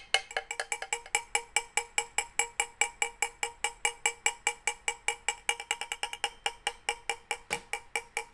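Small dent hammer tapping lightly and rapidly, about five taps a second, on the brass crook of a Conn trombone tuning slide. The tube rings briefly with each tap. The tube is being tapped round over a dent ball until the ball loosens.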